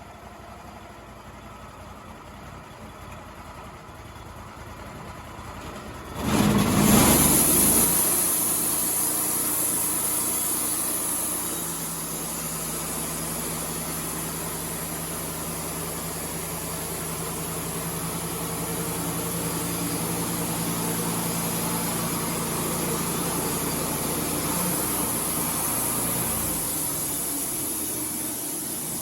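Wood-Mizer LT35 band sawmill: the engine runs quietly at low speed, then about six seconds in comes up with a sudden loud rise as the band blade is engaged, and runs steadily under load with a high hiss from the blade sawing through a cedar log.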